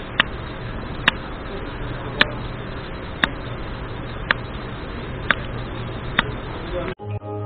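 A steady hiss with a sharp tick about once a second, slightly uneven. About seven seconds in it cuts off suddenly and soft music begins.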